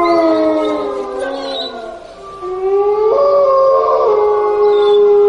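Several long howls overlapping, their pitch sliding slowly down and fading about two seconds in; a new howl sets in soon after, steps up in pitch, then holds steady.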